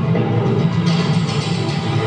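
Recorded dance music playing loud and continuously, accompanying a solo stage dance.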